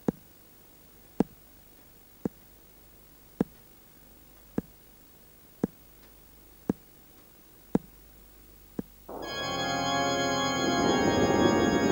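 Pendulum clock ticking, about one sharp tick a second, nine ticks in all. About nine seconds in, music of long held chords comes in and keeps going.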